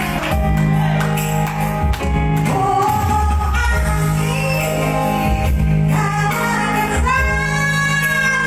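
A woman singing into a microphone over electric keyboard accompaniment, her voice high and piercing, holding a long high note near the end.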